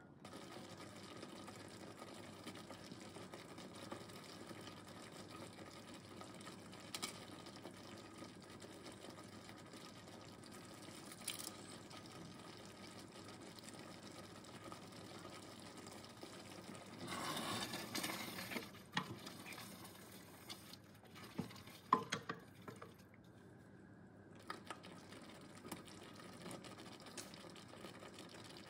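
Tomato-and-onion curry sauce simmering faintly in a stainless steel saucepan. About two-thirds of the way through, a louder stretch of sizzling lasts a couple of seconds, followed by a few light knocks.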